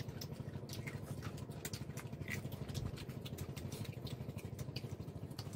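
Scattered small clicks and crackles of boiled shrimp being picked through and peeled by hand in a wicker basket, over a steady low hum.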